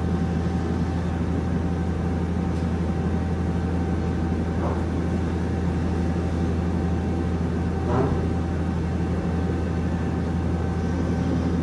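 Okuma Captain L-470 CNC lathe running with its spindle and chuck turning: a steady low hum with a few constant whining tones above it. Two brief clinks sound about five and eight seconds in.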